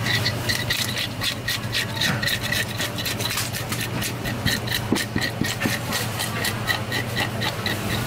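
A metal-studded fish scaler raked quickly along a parrotfish, scraping off its large scales in a fast run of rasping strokes, several a second, over a steady low hum.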